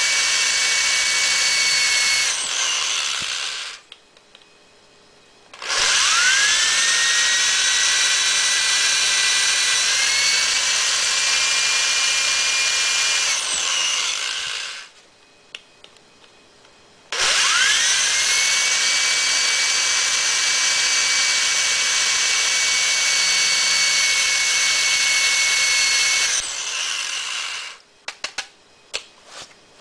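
Corded 3/8-inch electric drill spinning a .223 Remington brass case against a hand-held primer pocket uniforming tool, reaming the small rifle primer pocket out to take a large rifle magnum primer. The drill runs in three spells: it winds down about three seconds in, then twice more spins up with a rising whine, runs steadily for about eight seconds and winds down. The short pauses between spells are for clearing the tailings, and a few light clicks come near the end.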